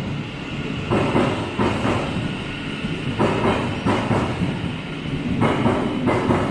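Thameslink Class 700 electric multiple unit moving through an underground station platform, its wheels rumbling and clattering over the track, with a clack roughly every second as each bogie passes.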